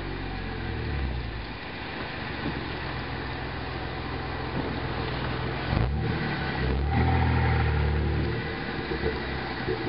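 2010 Jeep Wrangler JK's 3.8-litre V6 through an MBRP aftermarket exhaust, blipped about a second in and revved again around six and seven seconds in. Between the revs, as the engine drops back, there are short crackling pops from the exhaust.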